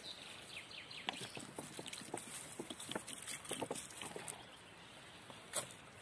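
Dry leaf litter and fern fronds rustling and crackling in irregular small ticks as a hand moves through them, with one sharper click about five and a half seconds in.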